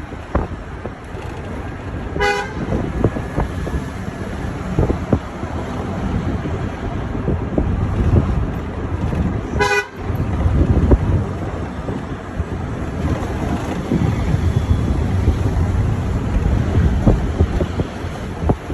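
Vehicle horn tooting twice, short blasts about seven seconds apart, over the steady road rumble and wind noise of a moving bus.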